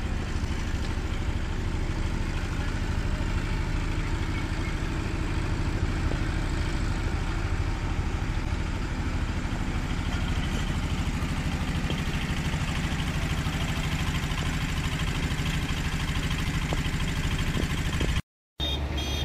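Hino bus diesel engine idling steadily with a low rumble; it cuts out abruptly for about half a second near the end.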